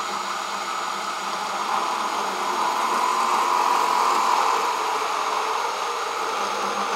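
DeWalt Atomic 20V compact cordless bandsaw running and cutting through a metal pipe. The motor's high whine runs over the rasp of the blade in the steel, growing a little louder about halfway through.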